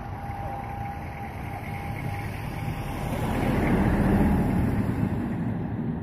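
Jet airliner passing close overhead on landing approach: its engine noise swells to a peak about four seconds in and then eases off. A steady high whine sounds over the rumble and fades out about halfway through.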